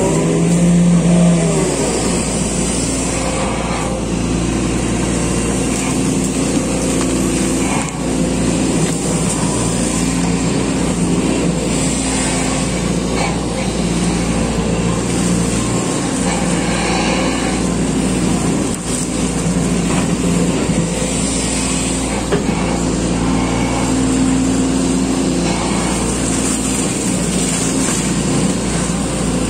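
SANY SY215C excavator's diesel engine running steadily under working load as the bucket digs a muddy ditch, heard from the operator's cab. It swells briefly about a second in.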